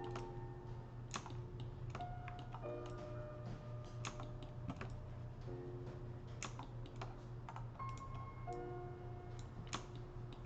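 Computer keyboard keys clicking at an irregular pace, several taps a second, over soft background music with held notes and a low steady hum.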